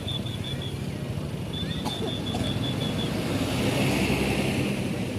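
A bus engine running steadily, with two runs of rapid high beeping at about five or six beeps a second over it, the second lasting about a second and a half. A hiss rises in the second half.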